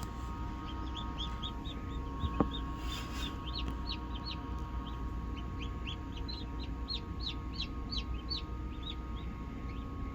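Newly hatched Cheonggye (green-egg chicken) chicks peeping: a rapid, irregular series of short, high, downward-sliding peeps over a steady hum.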